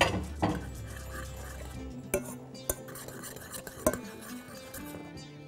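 Metal spoon stirring sauce in a stainless steel saucepan, with a few scattered clinks of the spoon against the pan.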